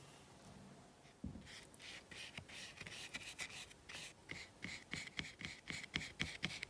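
Bristle brush scrubbing and dabbing thick oil paint onto coarse linen canvas: faint, short, scratchy strokes in a quick, irregular run, starting about a second in.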